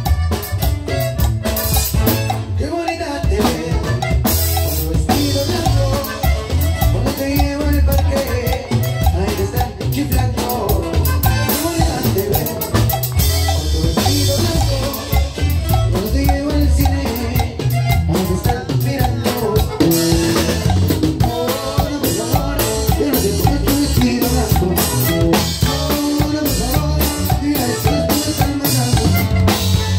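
Live cumbia played on a piano accordion over a drum kit with a steady dance beat, with a metal güiro scraped in rhythm.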